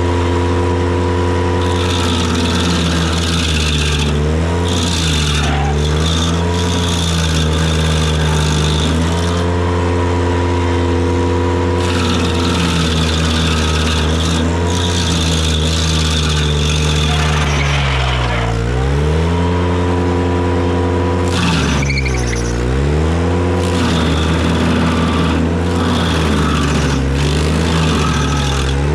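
Ventrac tractor engine running hard to drive a KC220 stump grinder. Its pitch sags and recovers several times, most deeply about two-thirds of the way through, as the cutter wheel bites into the stump and loads the engine. A rasping grind from the cutter teeth chewing wood comes and goes.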